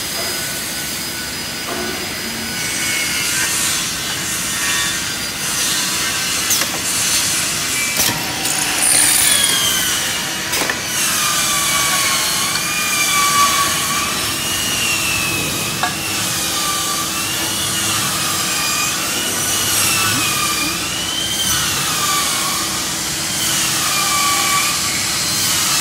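Six-station drilling machine running, its drills working short profiles, with a steady hiss and a few sharp clicks. From about nine seconds in, a high squeal wavers up and down over the noise.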